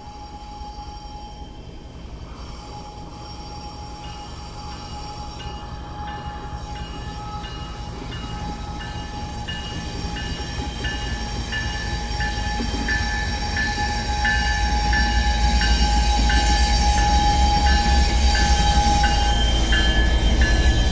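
BNSF diesel locomotive hauling a coal train approaches and passes close by, its low engine rumble growing steadily louder and peaking in the second half. Through it a grade-crossing bell rings evenly, about two strikes a second.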